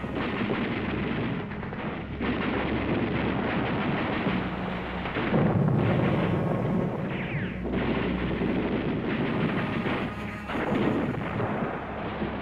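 Battle sounds of gunfire and explosions, dense and continuous, muffled like an old recording and heaviest about halfway through.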